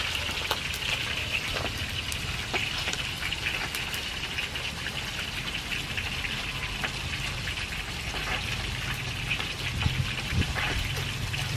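Hot oil sizzling and crackling steadily with scattered pops as catfish and tofu deep-fry in woks over wood fires. A low rumble joins in over the last few seconds.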